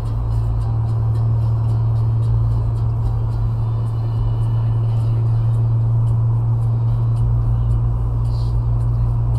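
A car's engine and road noise heard inside the cabin while driving at highway speed: a steady low drone that holds its pitch, over an even rumble of tyres.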